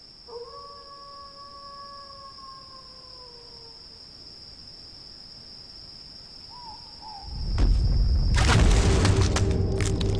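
Horror sound design for a graveyard: a steady chirring of crickets runs under a long, slightly falling howl near the start and brief wavering calls a little after the middle. From about seven seconds in, a deep rumble swells into loud cracking and crunching of earth breaking open as a skeletal hand bursts out of a grave.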